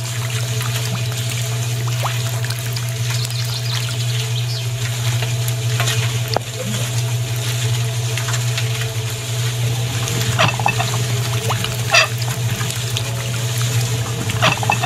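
Wet cement slurry pouring and squelching in a small model footing trench, over a steady low hum. Several sharp clicks come in the second half.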